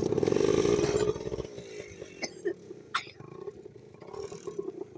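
ATV (four-wheeler) engine revving loudly for about a second and a half, then running lower, with a couple of sharp knocks in between.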